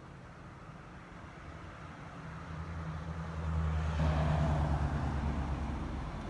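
A car driving past on the street: engine hum and tyre noise build over a couple of seconds, are loudest about four seconds in, then fade away.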